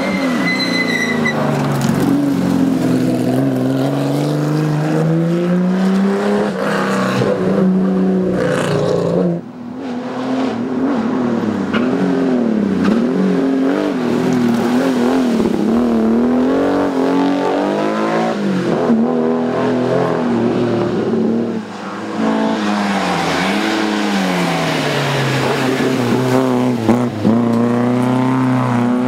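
Historic rally cars driven hard on a tarmac stage, one after another: a Porsche 911's air-cooled flat-six, then a second 911, then an Opel Kadett GT/E's four-cylinder. Each engine's pitch rises and falls through gear changes and lifts off the throttle. The sound breaks briefly about a third and two-thirds of the way through as one car gives way to the next.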